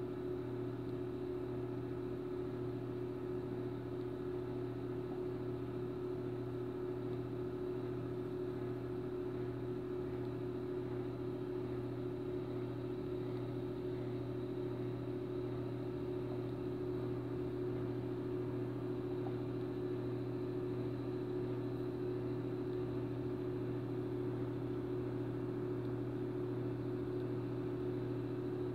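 Steady, even hum of a small reef aquarium's running equipment, with a low mains-type drone under a higher hum.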